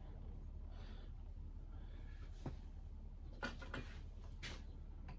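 A few light clicks and knocks, about four in the second half, with a soft rustle near the start: small parts and packaging being handled, over a low steady hum.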